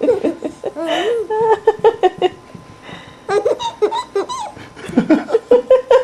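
A three-month-old baby laughing in quick, high-pitched bursts while being bounced on an exercise ball, with a pause of about a second midway.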